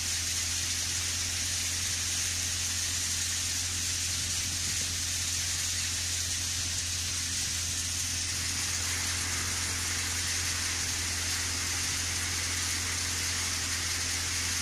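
Tractor-driven grain thresher running: a steady, unbroken low hum with a hiss over it.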